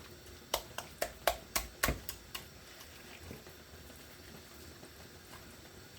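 A quick run of light clicks and taps of a kitchen utensil against a dish during the first two seconds or so, then only faint room tone.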